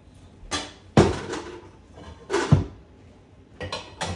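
Kitchen cabinet doors being opened and banged shut: a few sharp knocks and bangs, the loudest about a second in and again at about two and a half seconds, then a quick run of smaller knocks near the end.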